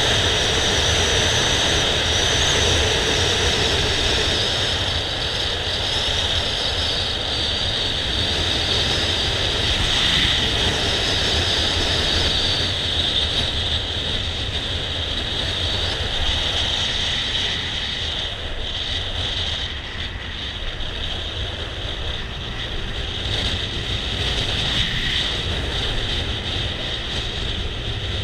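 Motor scooter riding at road speed: the engine drones steadily under rushing wind and road noise. The level dips a little about two-thirds of the way through and picks up again near the end.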